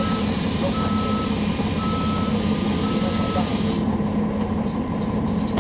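A Cummins ISL9 diesel bus idling steadily, with a long hiss of compressed air being let out and short warning beeps about once a second over it, typical of a transit bus kneeling at a stop. The hiss cuts off a little under four seconds in, and a few light clicks follow.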